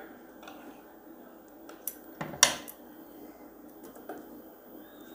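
A few sharp metallic clicks and clinks as the sewing machine is handled while the fabric is set under its presser foot; the loudest clink comes about two and a half seconds in, with fainter clicks around it.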